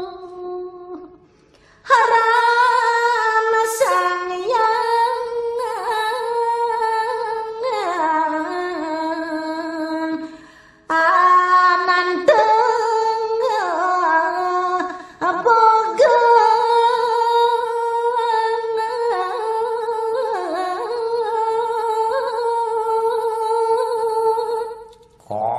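A single voice singing a Balinese geguritan verse in a slow, drawn-out tembang melody, holding long notes that waver and slide between pitches, with short breaths about a second in, near the middle and just after it.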